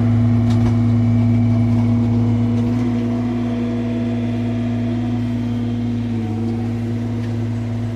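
Mini excavator's diesel engine running steadily as the machine is driven and turned around, with a slight dip in pitch about three-quarters of the way through.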